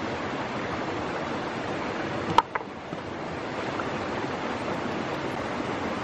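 Steady rush of river water below a waterfall, with one sharp click a little over two seconds in.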